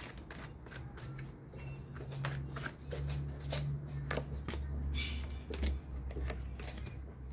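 Tarot cards being shuffled and handled by hand: a run of light, quick card snaps and flicks, with a low hum underneath from about two seconds in.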